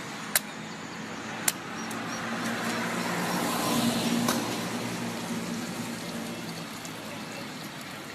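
Traffic noise with a motor vehicle passing, its engine and tyre noise swelling to a peak about halfway through and then fading. Two sharp knocks in the first two seconds.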